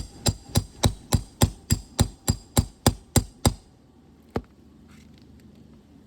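Roofing hammer striking in a quick, even run of about thirteen blows, roughly three a second. It stops, and one last blow follows about a second later.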